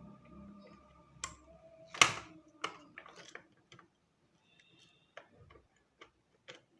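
RJ45 plug pushed into a network switch port, its plastic latch snapping in with a sharp click about two seconds in, among a string of lighter clicks and taps from handling the plug.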